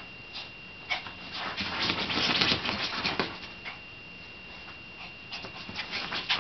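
A Yorkie-Silky puppy's paws scratching and scrabbling on a quilted bed comforter, in quick rustling flurries: a dense one about a second in lasting a couple of seconds, and another near the end.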